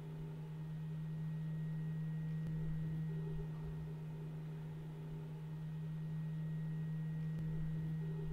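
A steady low hum, with faint handling noise as hands work at wiring and zip ties.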